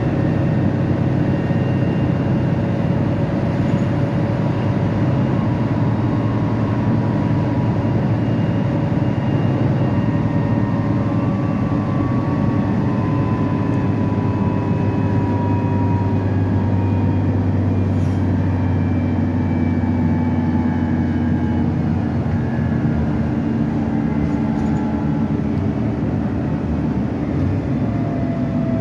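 Volvo B9TL double-decker bus's six-cylinder diesel engine running, its pitch drifting slowly up and down.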